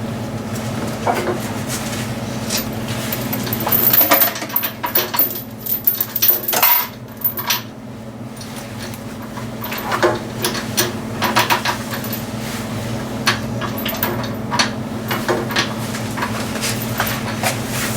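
Bolts and hand tools clinking and rattling against metal while a bolt is fitted. The clicks come in clusters, busiest about four to seven seconds in and again around ten to twelve seconds, over a steady low hum.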